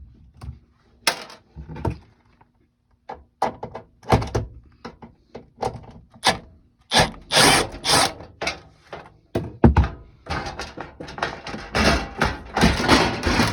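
Carrier gas furnace's sheet-metal access panel and its screws being handled: an irregular string of knocks and clunks, with scraping and clatter growing busier near the end as the panel comes off.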